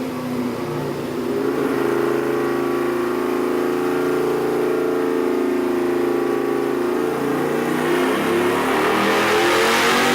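Custom Honda CX500 V-twin with Murray's carbs and a custom 2-1-2 exhaust running, holding a steady note for several seconds, then revving up with a rising pitch over the last few seconds.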